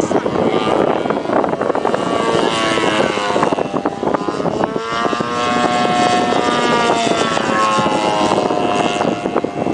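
Radio-controlled model airplane's engine and propeller buzzing in flight, its pitch sweeping down and up again several times as the plane passes and manoeuvres.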